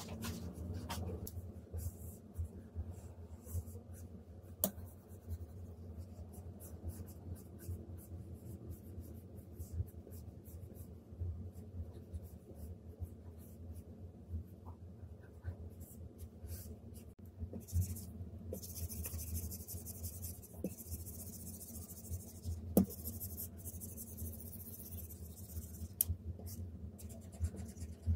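Felt-nib stylus scratching across the screen of a Huion Kamvas Pro 19 pen display during drawing strokes: a soft, scratchy hiss broken by many light taps as the nib meets the glass, the scratching denser about two-thirds of the way through. A low steady hum lies underneath.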